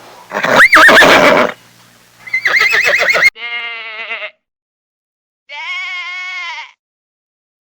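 A loud, harsh animal call in the first second and a half, then a series of wavering, quavering bleats about a second long with short silent gaps between them.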